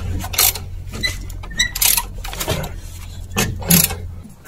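Scattered metallic clicks and taps of hand tools working a brake-line fitting at a disc brake caliper, over a steady low hum that fades out near the end.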